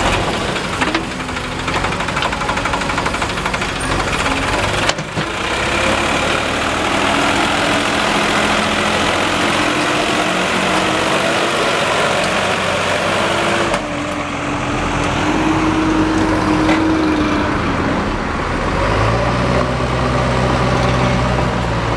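Diesel engines of a Sonalika DI 47 RX tractor and a JCB backhoe loader running under load as the tractor, stuck in mud with a loaded trolley, is pushed out; the engine notes drift up and down in pitch. The sound changes abruptly twice, and near the end a deeper engine note takes over.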